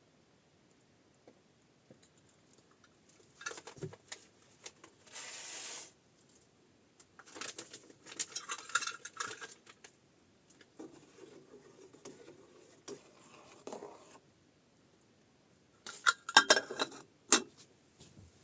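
Pots, dishes and utensils being handled, clinking and scraping in several bursts, with the loudest clatter near the end. About five seconds in there is a steady hiss lasting about a second.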